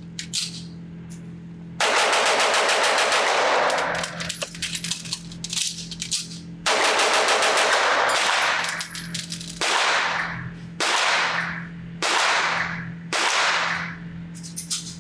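Rapid strings of 9mm pistol fire from a ported 2011-style pistol, the Fowler Vanta 9 Ported MTO. A fast string starts about two seconds in, a short gap with small clicks follows, then a second fast string, then four single shots about a second apart. A steady low hum runs underneath.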